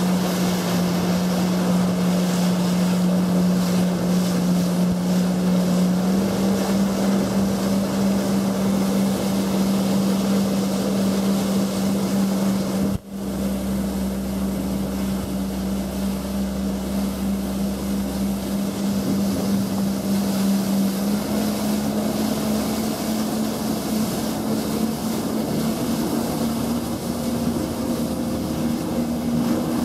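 Yamaha jet ski engine running at speed with a steady drone, over rushing water and wind noise on the microphone. The engine pitch steps up slightly about six seconds in and again near twenty seconds, and the sound briefly drops out about thirteen seconds in.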